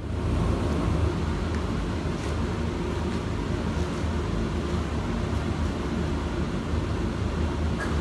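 A steady low hum with a rushing noise behind it, like a running machine, with a few faint clicks.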